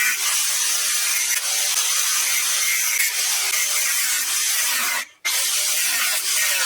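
Metalworking on steel chassis rails: a loud, steady, harsh hiss that cuts out for a moment about five seconds in, then starts again.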